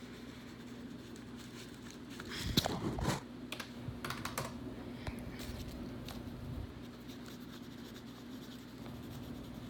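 Scattered light taps and clicks, like keys or small objects being pressed and handled, loudest in a short cluster about two and a half seconds in, over a steady low hum.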